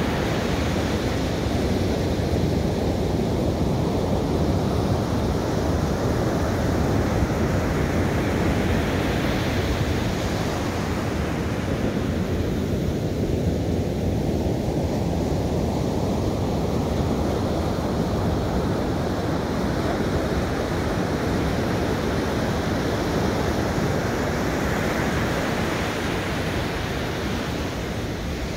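Ocean surf breaking on a sandy beach: a steady low rush of waves with louder hissing washes of foam about ten seconds in and again near the end.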